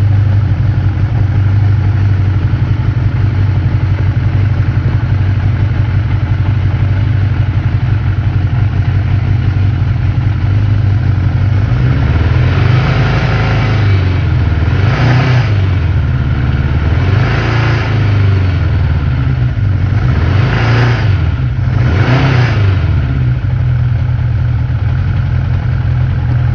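1982 Honda CB750SC Nighthawk's air-cooled inline-four engine idling steadily on freshly rebuilt carburetors, then blipped about five times in the second half, each rev rising and dropping back to idle.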